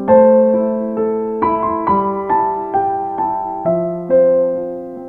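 Background piano music: notes and chords struck about twice a second, each ringing and fading, with louder chords at the start and about four seconds in.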